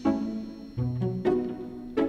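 Background music: plucked string notes in a steady, bouncy pattern, about two notes a second.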